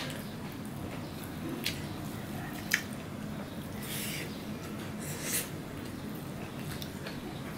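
Close-up sounds of a person eating rice and fried fish by hand: chewing with wet lip smacks and a few sharp mouth clicks, the sharpest about three seconds in. A steady low hum sits underneath.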